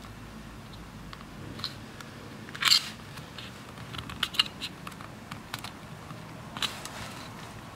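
Fingers handling a small opened plastic case with a circuit board inside: scattered light clicks and taps, with one louder brief scrape about three seconds in.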